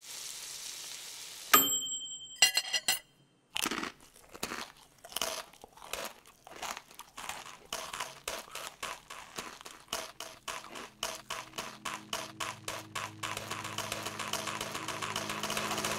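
Brown paper bags crinkling and crumpling in quick repeated bursts that come faster and faster, after a sharp hit with a brief ringing tone about a second and a half in. A low steady hum comes in under the crinkling in the last few seconds.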